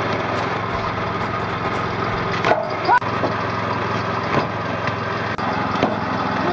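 Homemade flywheel log splitter, a heavy spinning steel disc with a splitting wedge, running with a steady hum while logs pushed against it split with a few sharp cracks.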